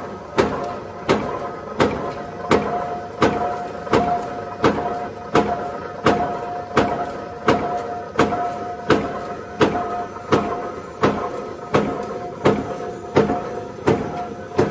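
Punch press of a razor wire making machine stamping barbed blades into steel strip: a sharp metallic clank about three times every two seconds, steady and even, over a constant machine hum.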